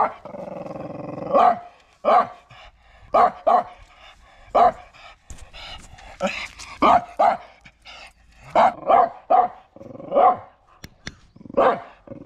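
Jomon Shiba dog barking: a drawn-out rough note at the start, then a dozen or so short, sharp barks, often in quick pairs, with short pauses between them.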